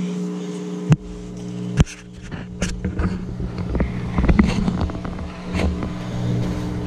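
Washing machine running with a steady low hum. Over it, rustling and handling noises as a fabric wrench roll is spread out, with two sharp knocks about one and two seconds in.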